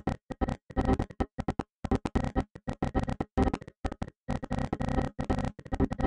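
Windows error chime chopped into a rapid stutter: very short repeated fragments of the same pitched tones, several a second, broken by a few brief silences.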